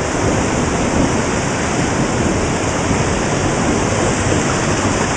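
Loud, steady rush of flowing floodwater, an even roar with no breaks.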